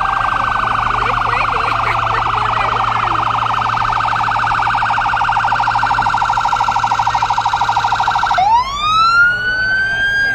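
Emergency vehicle's electronic siren sounding a loud, rapid warble. About eight seconds in it switches to a slow wail rising in pitch.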